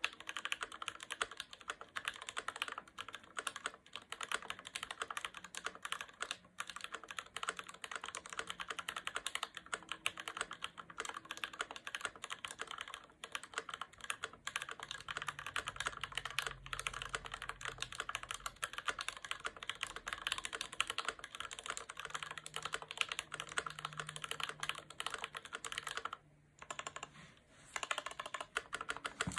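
Fast typing on an IDOBAO ID80 mechanical keyboard with Gateron Ink Black linear switches lubed with Krytox 205g0: a rapid, continuous run of keystrokes, with a short pause about 26 seconds in.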